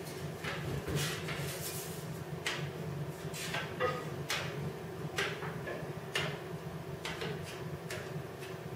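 Light clicks and scrapes of a small square being set against the flanges of an aluminium wing rib, coming every second or so, while the flanges are checked for square. A steady low hum runs underneath.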